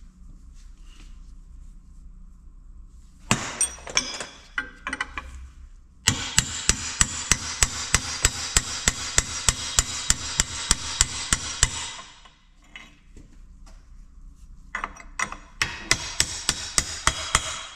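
A hammer striking a seized governor shaft and bearing in its metal housing: a few blows, then a long fast run of even strikes at about four or five a second, then more blows near the end. The parts are seized solid and are not coming free.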